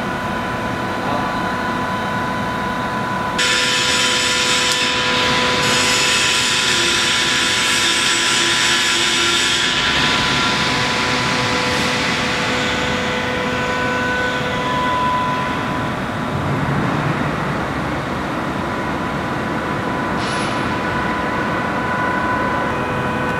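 Machinery of a CNC plasma cutting line running: a steady hum with several constant tones, and a loud hiss that starts abruptly about three seconds in and dies away after about ten seconds.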